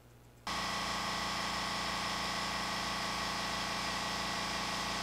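Small air compressor for airbrushing switching on suddenly about half a second in and running with a steady motor hum.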